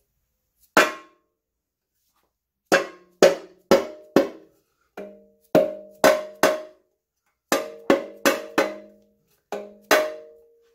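A soft-faced mallet striking a cast-aluminium bell housing to drive the tight-fitting housing home onto the engine block. It lands about fifteen sharp blows in quick bunches of two to four, and each blow leaves the housing ringing briefly with a metallic tone.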